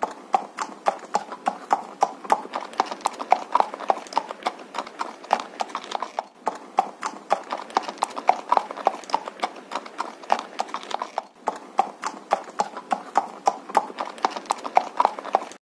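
Horse hoofbeats sound effect: a steady clip-clop of hooves, several strikes a second, with two brief breaks about six and eleven seconds in, cutting off suddenly at the end.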